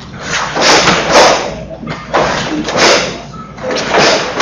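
A karateka performing the kata Pinan Nidan: a series of short, sharp hissing swishes, about two a second with a brief pause in the middle, one with each block and strike, from forceful exhalations and the snap of the gi.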